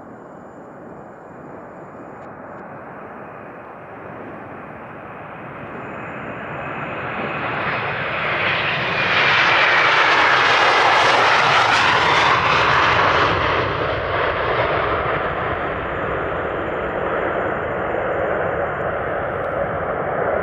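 Airbus A330-300's twin GE CF6-80E1 turbofans at take-off power, growing louder as the jet passes close by, loudest about halfway through with a sweeping shift in tone, then running on as a steady rumble.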